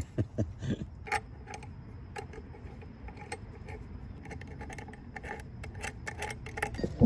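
Light metal clicks and taps of a motorcycle horn's chrome mounting bracket and bolt being handled and fitted by hand, scattered irregularly throughout.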